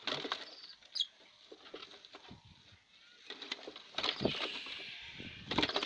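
A hand rummaging through dry wood shavings in a wooden nest box, making scratchy rustles and small knocks against the wood. There is a short, high bird chirp about a second in.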